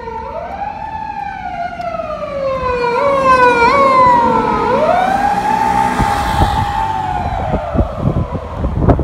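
Japanese police patrol car's electronic siren wailing: it rises, falls slowly, then rises again and holds, growing louder toward the middle. Near the end, gusts of wind buffet the microphone.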